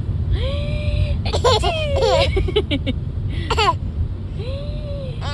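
A baby vocalizing: a drawn-out high call near the start and again near the end, with bursts of giggling laughter in between.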